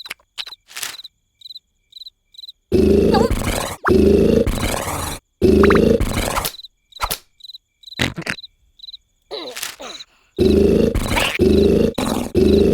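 Cartoon larva snoring: loud, low snores about a second long, one after another, in a run a few seconds in and again near the end. Quieter, regular cricket-like chirps fill the gaps.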